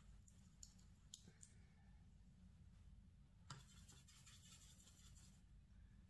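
Faint scratching of a watercolour brush working mauve paint, with a few light clicks early on and a longer scrubbing rustle after the middle, over a low steady hum.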